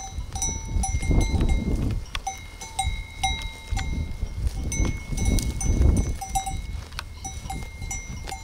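Metal livestock bells on grazing sheep clanking unevenly, struck every fraction of a second, each strike ringing on briefly. Low rumbling noise swells up twice under the bells.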